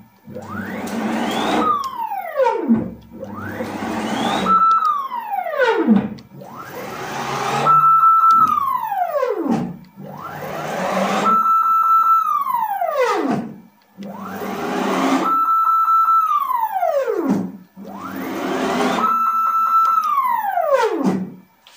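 NEMA 23 stepper motors on DM542 drivers at 36 V whining as a home-built CNC router's gantry makes rapid traverse moves at 8000 mm/min. The pitch climbs as the motors accelerate, holds steady at top speed, then sweeps down as they decelerate to a stop, about seven moves one after another with a brief pause between each.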